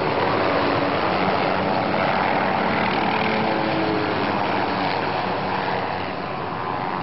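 Rotor and turbine noise of a small MD 530 'Little Bird' light helicopter flying low overhead, its blades chopping fast and steadily, easing off slightly near the end as it moves away.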